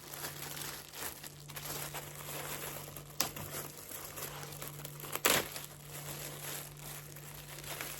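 Packaging crinkling and rustling as items are handled and unwrapped, with two sharp clicks about three and five seconds in.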